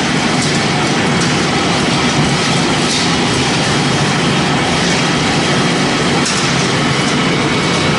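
Biomass pellet production line running: the pellet mill and pellet conveyor make a steady, loud machine noise.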